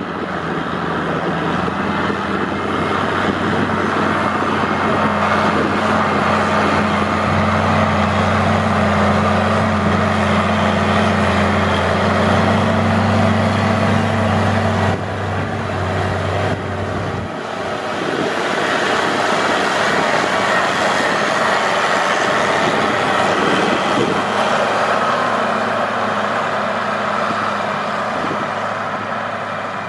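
New Holland Versatile 9684 four-wheel-drive tractor's six-cylinder diesel engine running steadily under load, pulling a tillage ripper through the soil. A little past halfway its steady low hum drops away, leaving a broader, rougher noise.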